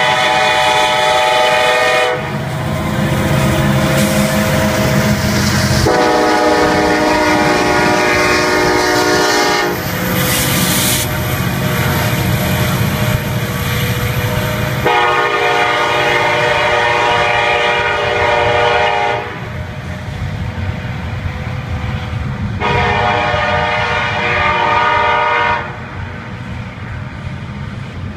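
Freight locomotive's multi-chime air horn sounding long blasts at a grade crossing: one ends about two seconds in, then three more follow. Between the blasts the diesel locomotives rumble past, and near the end the double-stack container cars roll by with wheel clatter.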